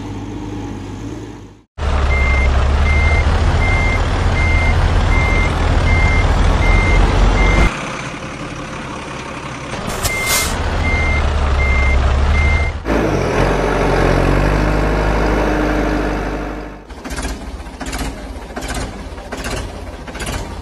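Truck sound effects for a toy tipper truck: a loud low engine rumble with a reversing beeper sounding about once a second in two runs, and a short hiss about ten seconds in. Music plays for the first second or so, and a quick run of clicks comes near the end.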